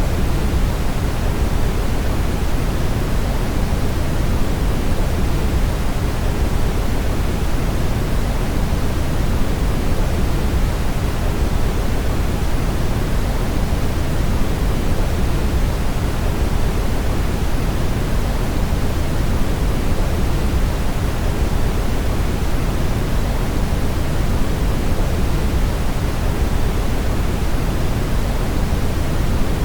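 Brown noise: a steady, unbroken rushing hiss with most of its weight in the deep bass, fading toward the highs.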